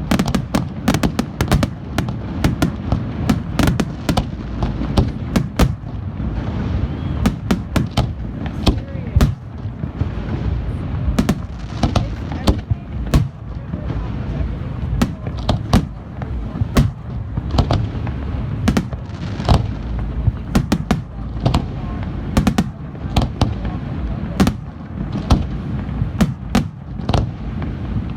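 Aerial fireworks display going off in a dense, continuous barrage: many sharp bangs and crackling reports every second over a low rolling rumble.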